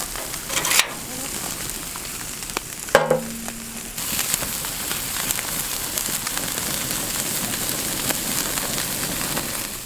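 Hamburger patties sizzling on a wood-fired grill, with fine crackling throughout. Two sharp knocks come about one second and three seconds in. The sizzle grows louder and denser from about four seconds in.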